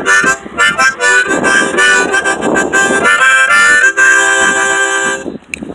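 Harmonica played in a short run of notes and chords, stopping about five seconds in.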